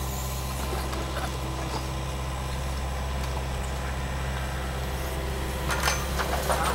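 Yanmar mini excavator's diesel engine running steadily under work, with a short clatter near the end as a bucketload of rubble and soil drops into the steel bed of a dump truck.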